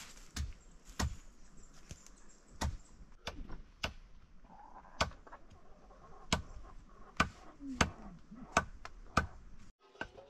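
Repeated sharp chops of a blade cutting through bundled vine ropes, about one stroke a second at an uneven pace.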